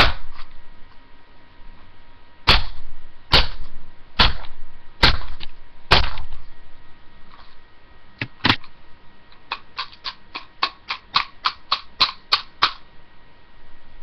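Hammer blows on a plastic computer mouse being smashed open. Six heavy strikes come about a second apart, then two lighter ones, then a quick run of about a dozen lighter taps, about four a second.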